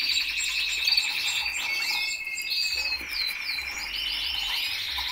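Several domestic canaries singing at once, a dense mix of fast trills and clear whistled notes.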